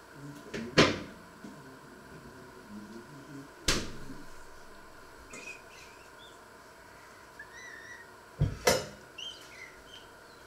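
Knocks of kitchen things being handled and set down: four sharp knocks, the loudest a double knock near the end as a metal mixing bowl of dough is put down on the wooden table. Faint high chirps come in between.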